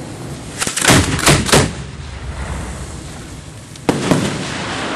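Aerial firework shells being fired by hand: four loud bangs in quick succession about a second in, then two more near the end, over a steady hiss.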